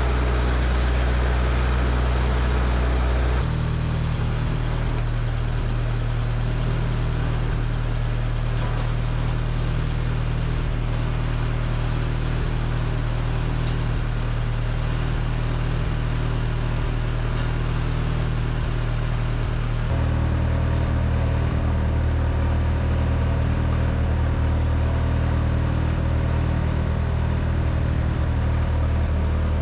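Miller Big 40 engine-driven welder's engine running steadily. Its note shifts about 3.5 seconds in and again about 20 seconds in.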